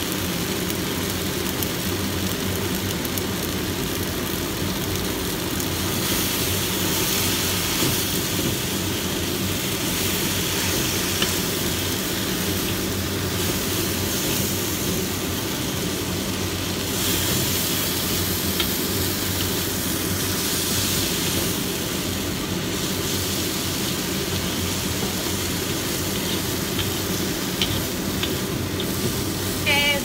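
Sweet potato leaves sizzling as they are stir-fried in a wok, with a wooden spatula tossing them, over a steady low hum.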